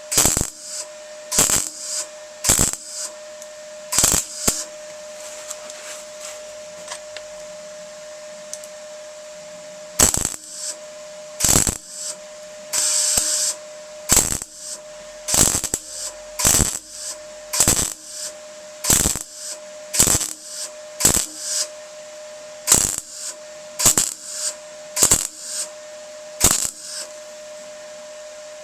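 MIG welder tack-welding a steel repair panel into a van body in many short crackling bursts, one after another, stitching along a gap. There is a pause of several seconds after the first four bursts, and a steady hum from the welding set runs underneath.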